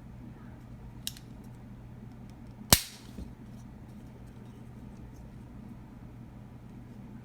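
A single loud, sharp click or snap from handling the camera, with a fainter click about a second and a half before it, over a steady low hum.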